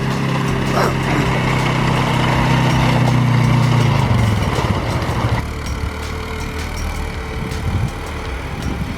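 A vehicle engine running steadily, its pitch dropping and fading about four and a half seconds in as it eases off, followed by quieter engine and ground noise.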